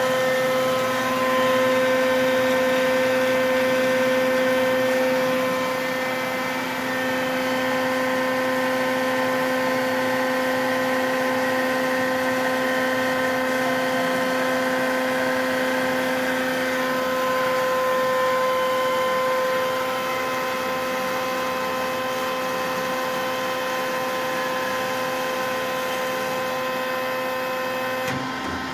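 1989 Amada HA-500 horizontal bandsaw running and cutting through a round metal bar as the saw head feeds down: a steady machine whine made of several held tones. One of the tones cuts off near the end.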